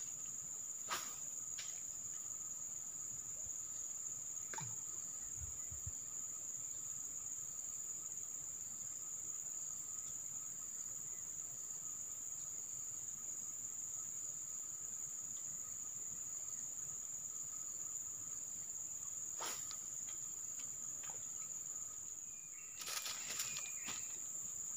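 Steady high-pitched drone of forest insects, holding one unbroken note, with a fainter lower note under it. A few faint clicks are heard now and then, a small cluster of them near the end.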